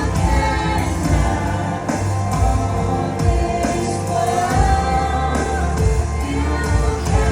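Gospel praise-and-worship music: voices singing together over a band with a steady bass and beat.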